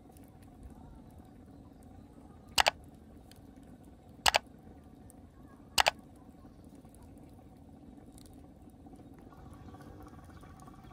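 Three sharp knocks about a second and a half apart, each a quick double strike with a short ring, over a faint steady background.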